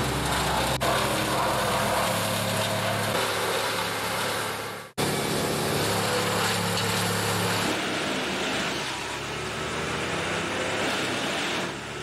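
Tree-removal machinery running steadily: an engine hum with a broad mechanical noise above it. The sound drops out for an instant about five seconds in and then resumes.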